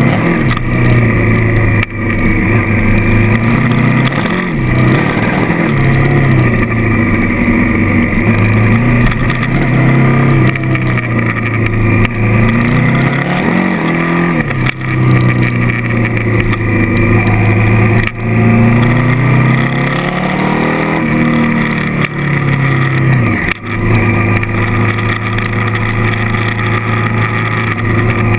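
Honda CRF1000L Africa Twin's parallel-twin engine running under way. The note rises and falls with the throttle and drops off briefly several times.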